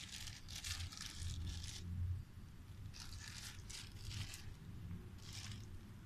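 Plastic bag crinkling and tearing as an Alexandrine parakeet bites and tugs at it with its beak, in three bouts of crackling: a long one at the start, another about three seconds in, and a short one near the end.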